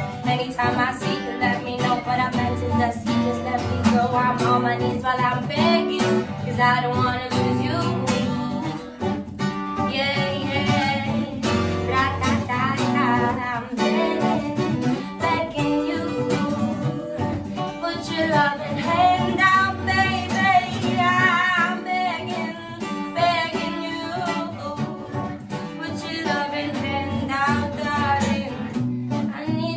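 A woman singing with an acoustic guitar accompaniment, in a live cover performance.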